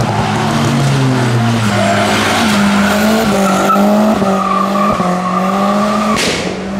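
A car's engine held at high, fairly steady revs while its tyres spin and squeal on the tarmac in a burnout. The level drops near the end.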